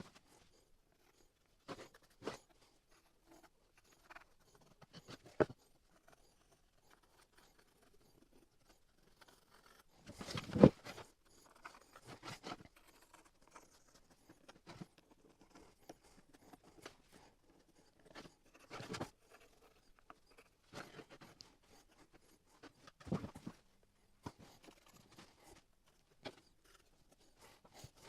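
Intermittent quiet handling noises: soft clicks, rustles and scrapes every second or two, with a sharper knock about ten seconds in.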